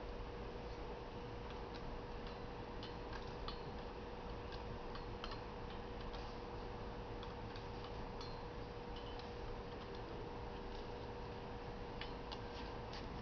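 Suzuki GSX-R600 front wheel spinning freely on a stand, with light, irregular ticking over a steady hum.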